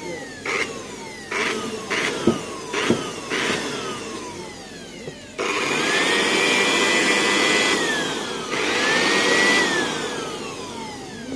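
Repaired electric air blower being switched on and off: about six short bursts in the first five seconds, each followed by a falling whine as the fan coasts down, then two longer runs where the motor whine rises to a steady high pitch before winding down.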